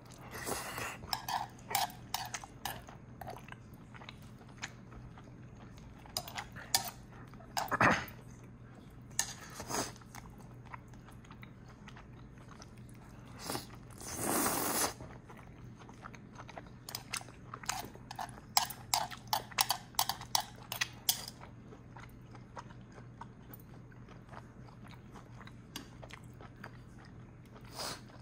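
Close-up eating sounds: chewing with wet mouth clicks and smacks in bursts, broken by pauses, and one longer burst of noise about fourteen seconds in.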